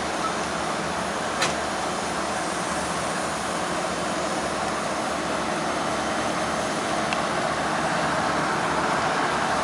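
Union Pacific diesel locomotives idling at a standstill: a steady engine rumble and hiss with a low hum, and a single sharp click about a second and a half in.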